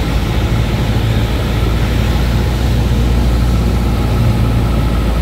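Cessna 172's piston engine and propeller heard from inside the cabin, a steady, unbroken low drone during the final approach to landing.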